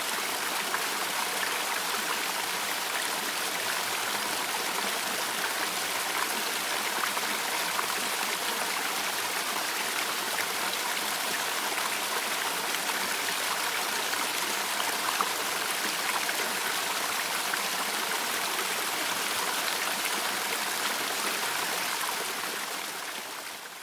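Running water: a steady rush of flowing water that fades out near the end.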